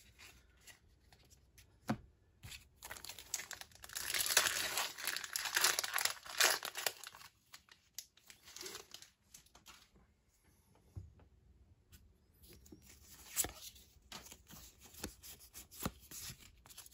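A foil Pokémon booster pack wrapper crinkling and being torn open, loudest for several seconds near the start. Then softer rustling and light clicks as the cards are pulled out and handled.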